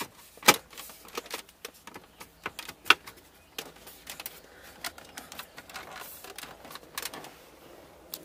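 Plastic clips of a 2003 Mustang GT's radio and HVAC dash bezel clicking and knocking as the bezel is pressed home into the dash: a scattered string of sharp clicks, the loudest about half a second in and near three seconds in.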